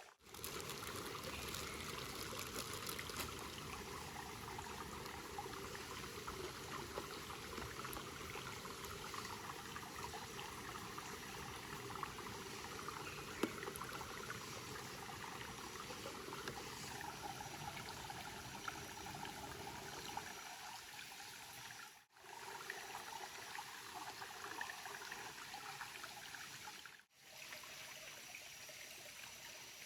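Steady running water of a stream, cut off briefly twice in the later part.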